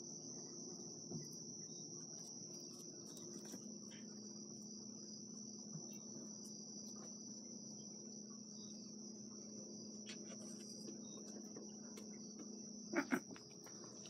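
Crickets trilling steadily in a high, unbroken chorus over a faint low hum. Two sharp knocks come in quick succession near the end.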